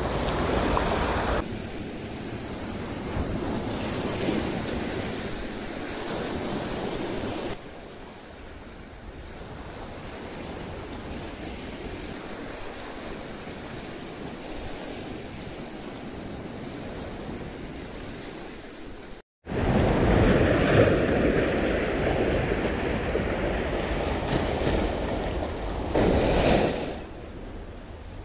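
Sea waves washing and breaking, with wind on the microphone. The sound is quieter through the middle, drops out for a moment about two-thirds of the way through, then comes back louder with a big surge near the end.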